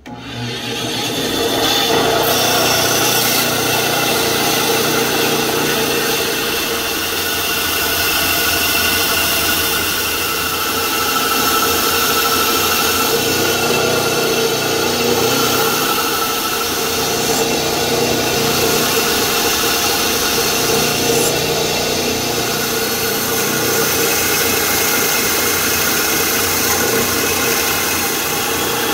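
Bandsaw running steadily, its blade cutting through a thick block of wood.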